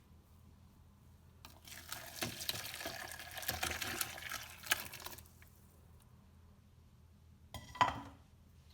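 Hot turmeric ginger tea poured from a pot through a strainer into a bowl, splashing for about three and a half seconds. A short knock follows near the end.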